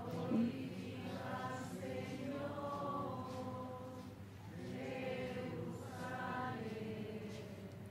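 Voices softly singing the slow chanted psalm refrain of the Mass, held notes in long phrases.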